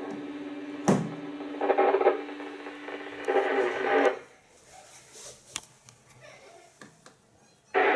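ISS Russian-segment downlink received on a Uniden UBC9000XLT scanner: a hissy radio channel with a steady hum and two short garbled bursts, and a sharp click about a second in. It cuts off abruptly about four seconds in, then loud static comes back suddenly just before the end.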